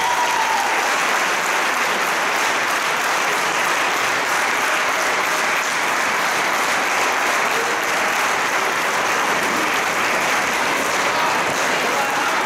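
Audience applauding steadily and densely, after the last note of the dance music dies away at the start.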